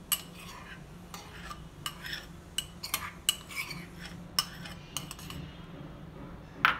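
Steel spoon scraping ghee out of a small bowl into a stainless steel pan, with a string of light clinks and taps as it strikes the bowl and the pan's rim. A louder clink near the end.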